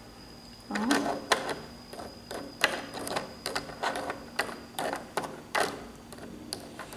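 Plastic toy utensil and plastic play food clicking and tapping against a small plastic toy frying pan as the food is stirred, in light, irregular clacks that start about a second in.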